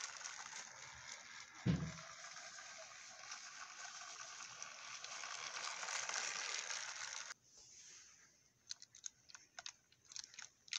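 Motorized Real Steam Percy toy train running along plastic track: a steady clattering whir of its motor and wheels, with one dull thump about two seconds in. The running noise cuts off suddenly about seven seconds in, and a few light clicks follow as the engine is handled.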